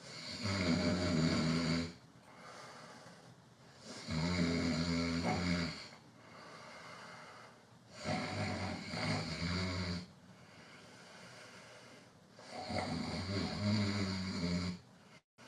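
A man snoring: four long, loud snores, one about every four seconds.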